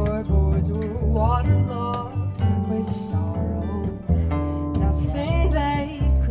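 A song: a voice singing a melody with plucked guitar accompaniment and low bass notes.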